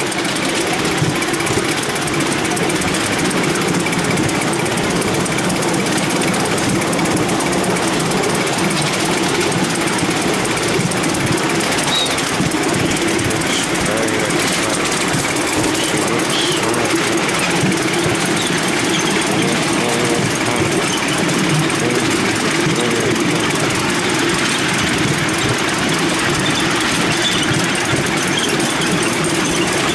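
Steady rattle and clatter of a miniature steam railway train under way, heard from a passenger seat just behind the locomotive: the small-gauge wheels running over the track together with the working miniature steam locomotive.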